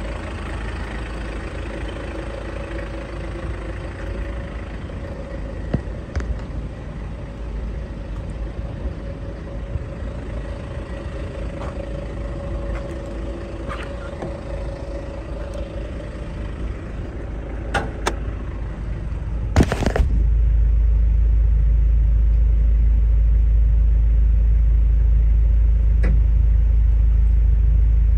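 Toyota 2L-TE 2.4-litre four-cylinder turbo-diesel idling steadily, with a few light clicks. About two-thirds of the way through, a loud rustle gives way to a steady, much louder low rumble on the microphone that covers the engine.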